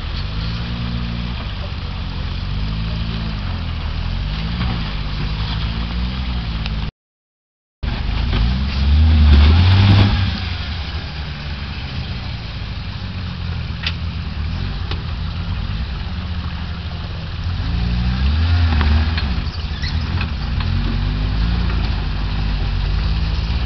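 Jeep Wrangler YJ engine working under load while rock-crawling, its revs rising and falling in bursts, loudest about nine to ten seconds in and again around eighteen to nineteen seconds in. The sound drops out completely for about a second near seven seconds in.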